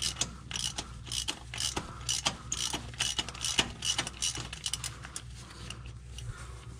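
Hand ratchet with a 12 mm socket clicking in quick back-and-forth strokes as it backs out a bolt under the transmission. The clicks come about four a second and thin out near the end.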